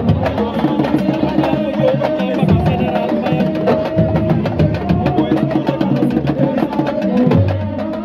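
Sabar drums playing a fast, dense rhythm, with a wavering sung line over it.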